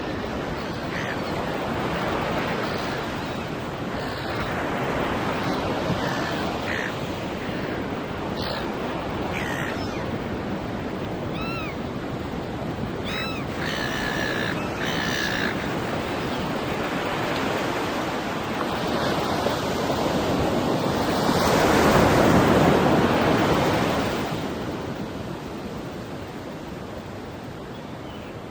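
Ocean surf washing steadily onto a beach, with one wave swelling and breaking loudest about three-quarters of the way through. Seagulls call several times in the middle, short arching cries.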